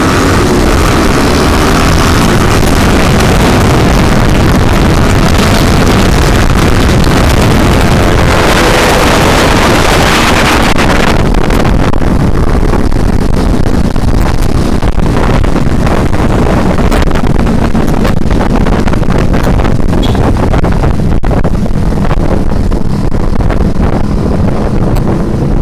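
Motorcycle engine revving up and down while riding, buried in heavy wind noise on the microphone. About eleven seconds in the engine's higher sound drops away, leaving mostly a low wind rumble.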